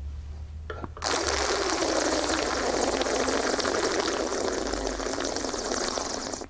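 Air sucked in through a mouthful of wine with the chin tucked down, the wine taster's aerating slurp that carries the wine's aroma up into the nasal cavity: a steady gurgling hiss that starts about a second in, holds for over five seconds and cuts off abruptly.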